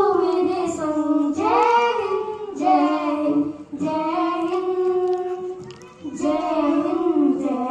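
A young girl singing solo into a microphone with no instruments, in long held phrases broken by short pauses for breath.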